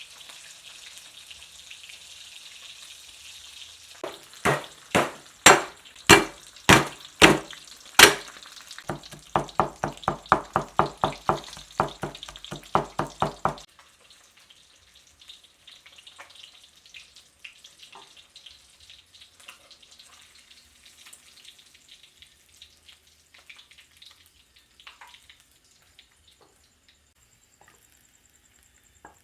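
Fish sizzling in hot oil for the first few seconds, then a run of sharp knocks: about seven slow heavy strikes followed by a faster run of lighter, ringing ones at about four a second that stops suddenly about halfway through. Only scattered faint clicks after that.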